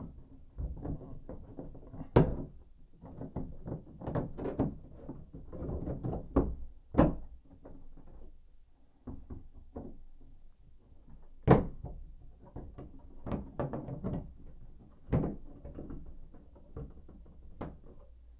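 Irregular knocks, taps and clicks of tools and valve parts being handled inside a shower valve opening and bumping the tub/shower surround. The sharpest knocks come about two, seven, eleven and fifteen seconds in.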